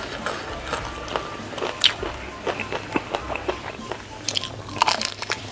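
Close-miked eating sounds: a person biting and chewing crispy fried udang rambutan (shrimp in a crunchy noodle coating), with irregular crunches, clicks and wet mouth smacks.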